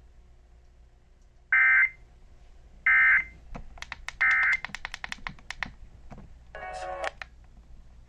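Eton American Red Cross weather alert radio beeping as its buttons are pressed: three short high beeps a second or so apart, a quick run of button clicks, then one lower-pitched beep near the end.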